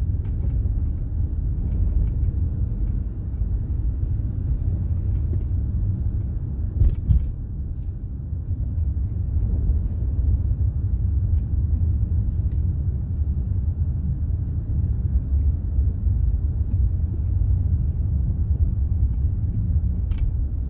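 Steady low rumble of road and engine noise heard inside a moving car, with a brief knock about seven seconds in.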